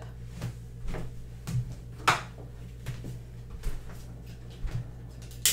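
Light clicks and knocks from a long-neck candle lighter being handled, roughly one a second over a low room hum, the loudest about two seconds in and a sharp click near the end.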